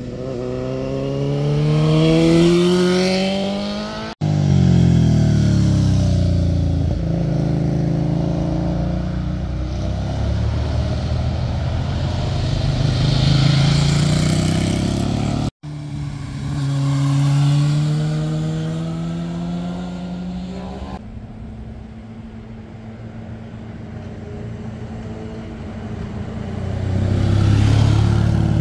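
Several motorcycles accelerating past one after another, the engine pitch climbing as each pulls through the bends and dropping away as it passes. The sound breaks off abruptly twice, about four and fifteen seconds in, where one pass cuts to the next.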